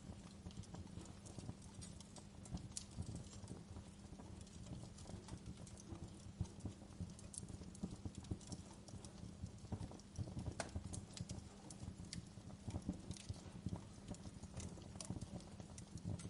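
Wood fire crackling in a fireplace: irregular pops and snaps over a low, steady rumble of the flames.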